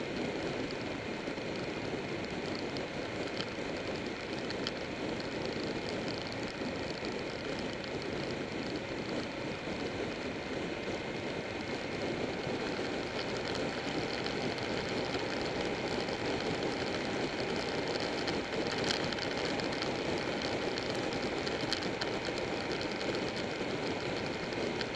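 Buell 1125R's V-twin engine running steadily at cruising speed, mixed with the rush of wind and road noise.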